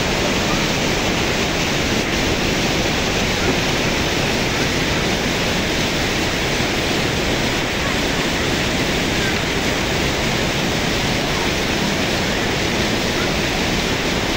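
Mountain stream rushing over rocks in a small waterfall: a steady, loud hiss of white water.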